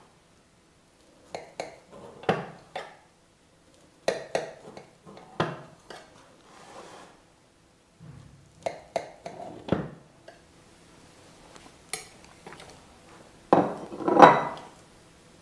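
Knife cutting a cream-filled cake and tapping and scraping against a glass cake plate, in irregular clinks and knocks, with a louder clatter of crockery near the end as a plate is brought in for the slice.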